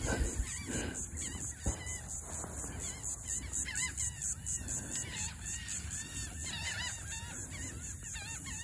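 Outdoor ambience of many faint, short bird chirps over a steady high pulsing hiss, with a small click near the start and another about a second and a half in.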